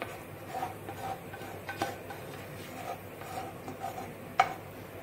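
A spatula scraping lightly against the inside of a paper cup, with two sharp taps, one near the middle and one near the end.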